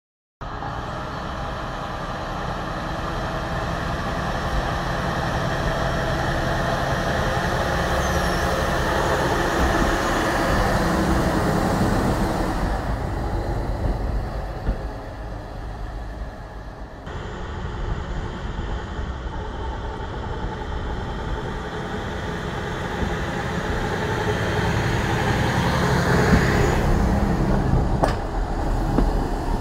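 Clayton CD40 Stage IV diesel locomotive's engine running, growing louder and then easing off in turn, with abrupt changes in the sound where shots are cut together.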